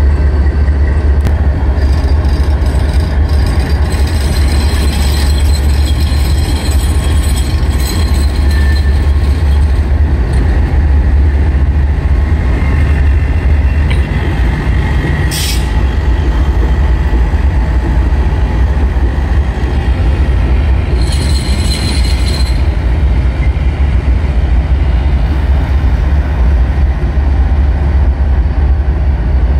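CSX diesel locomotive moving slowly while coupling up, its engine giving a steady deep rumble. High-pitched wheel squeal comes in for several seconds near the start and again briefly past the middle, and there is a short sharp noise about halfway through.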